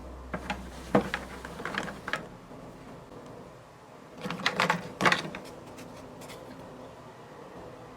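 Short clicks and light clatter of things being handled in a kitchen, in two brief clusters over quiet room tone, as an americano is prepared.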